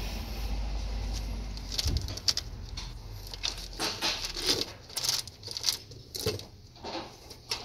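Metal links of a double-row engine timing chain clicking and clinking irregularly, several times a second, as the chain is hand-fed and drawn around the camshaft sprockets. A low hum sits under the first two or three seconds and then fades.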